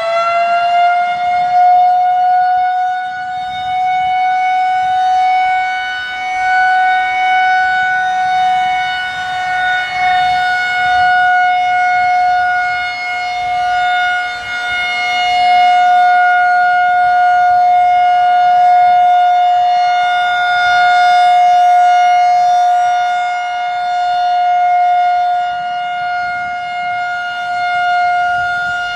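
Federal Signal 2001-130 single-tone chopper siren sounding its steady Alert signal, loud. It finishes winding up to full pitch about a second in, then holds one steady tone whose loudness slowly swells and fades as the rotating head sweeps.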